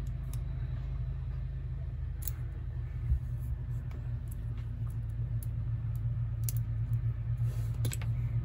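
Scattered small clicks and taps of knife parts being handled and fitted together, a micarta scale being lined up with its screws, over a steady low hum.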